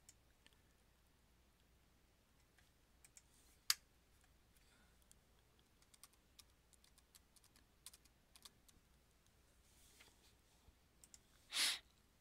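Faint computer keyboard typing and mouse clicks: a sharp click about four seconds in, then a scatter of light key taps, and a short louder noise near the end.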